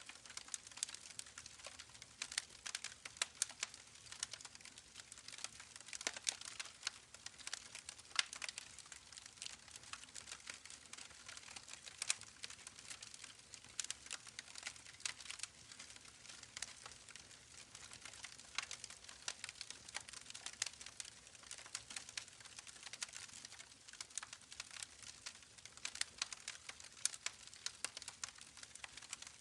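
Campfire crackling, with dense irregular sharp pops and snaps over a faint steady hiss.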